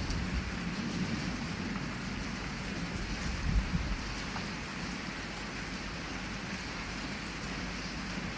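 Heavy rain falling steadily, with a low rumble of thunder in the first half that swells about three and a half seconds in.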